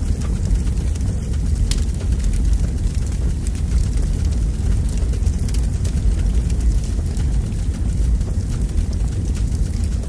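Crackling wood fire: scattered sharp pops over a steady low rumble.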